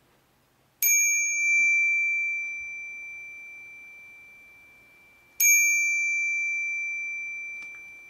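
West Biking retro copper bicycle bell struck twice, about a second in and again about four and a half seconds later. Each ding rings a clear high D, around D7, with fainter higher overtones, and fades away slowly.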